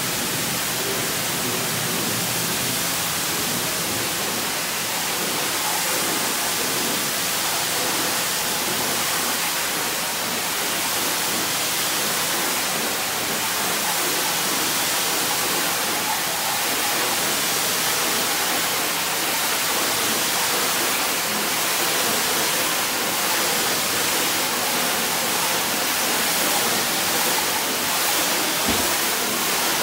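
High-pressure wash wand rinsing a semi-trailer's side wall with cold water: a steady, continuous hiss of spray striking the panels and splattering off. A single low knock near the end.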